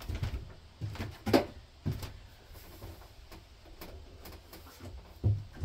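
Hand tools clicking and knocking against the steel steering linkage of a Craftsman YT4000 lawn tractor as its tight bolts are worked loose: a few scattered clicks and clunks, the sharpest about a second and a half in.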